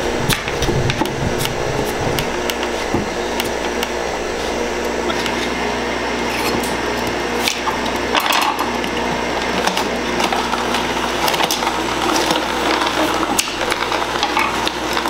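Vertical slow juicer's electric motor running steadily while it presses greens, with sharp clicks of a knife chopping carrots on a cutting board.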